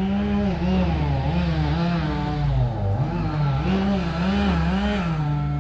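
An engine running, its pitch swelling up and down over and over, as under a changing load or throttle, then settling to a steady run near the end.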